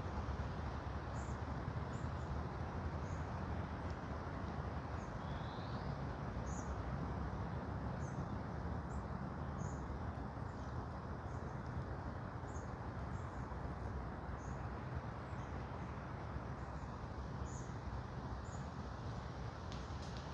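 Forest ambience: a steady low rushing noise, with short, very high bird chirps repeating about once a second and one rising call about five seconds in.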